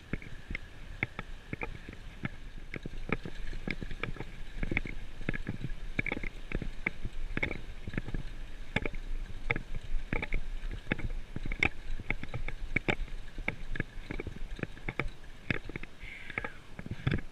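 Mountain bike ridden over a rough, bumpy track: a dense run of irregular knocks and rattles from the bike and the rider-mounted action camera, over a low rumble of wind and ground noise.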